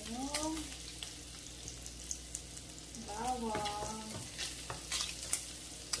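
Sausage pieces and chopped garlic sizzling in oil in a frying pan, with a spatula stirring and scraping against the pan in scattered clicks.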